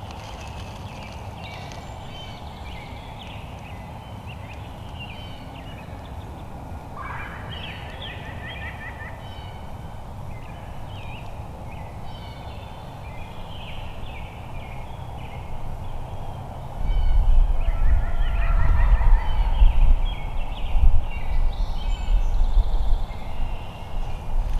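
Wild turkey gobbling twice, a rapid rattling call about a third of the way in and again near three-quarters, over steady small-bird chirping. About two-thirds through, a loud low rumble sets in and stays.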